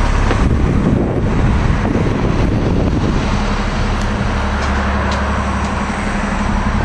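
City transit bus engine running close by; about three seconds in it settles into a steady, even hum.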